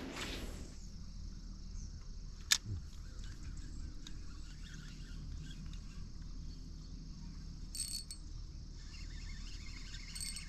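Quiet outdoor pond ambience with a steady low background. A single sharp click about two and a half seconds in is the loudest sound, and a brief high chirp comes near the end.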